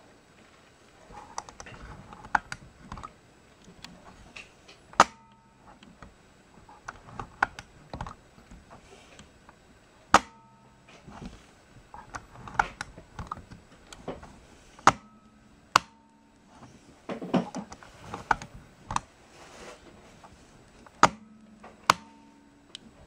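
Polaroid 250 Automatic Land Camera's shutter being cocked and fired over and over: a series of sharp mechanical clicks, several trailing a brief springy ring, with softer handling clicks in between.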